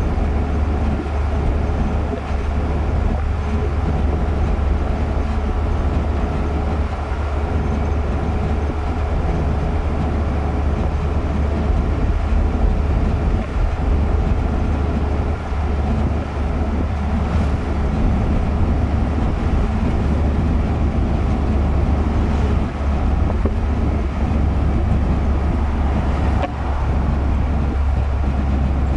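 Steady low rumble of a car's engine and tyres on the road, heard from inside the cabin while driving, with a faint steady whine over it.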